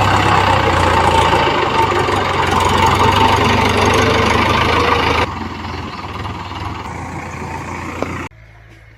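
A small electric water pump motor running with a steady hum and hiss. It is loud for about five seconds, then runs quieter, and cuts off suddenly near the end.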